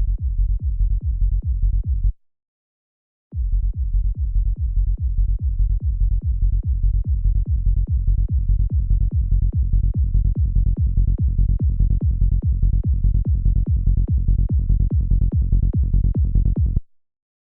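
A psytrance kick drum and rolling bass line, pulsing fast and even with little above the low end. Playback stops about 2 s in and restarts a second later; the sound then grows gradually brighter as a filter opens, until it cuts off near the end.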